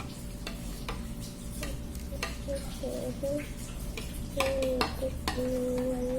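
A utensil stirring a slime mixture of glue and detergent in a bowl, with irregular clicks and scrapes against the sides. A child hums a few held notes partway through and near the end.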